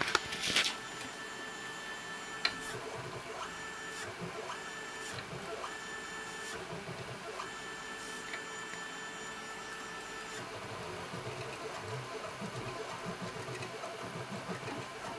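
Stepper motor driving a wheel in half-step mode from an A4988 driver with encoder feedback, giving a steady electrical whine whose pitch keeps dropping and jumping back up every second or so as its step rate changes, the way this drive loses step sync and re-accelerates. A few sharp clicks in the first seconds, and a lower rumble joins after about ten seconds.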